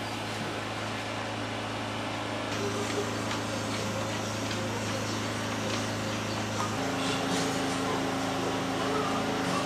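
Steady hum and hiss from a pressure canner heating on a gas burner, with faint light ticks; the hum's pitch shifts about seven seconds in.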